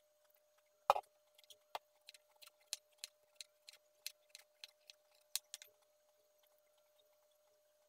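Kitchen knife peeling a chayote on a wooden cutting board: one knock against the board about a second in, then a run of light clicks from the blade's strokes, about three a second, stopping about two seconds before the end.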